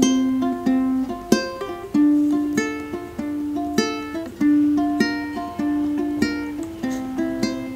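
Ukulele fingerpicked note by note in a repeating 3-2-1-2 pattern on the top three strings, each note ringing on into the next, moving through the chords F, D minor, B flat and C.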